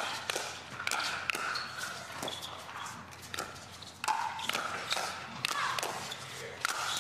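Paddles striking a plastic pickleball in a fast pro doubles rally: a string of sharp pops at an irregular pace of roughly one or two a second, over a haze of crowd noise.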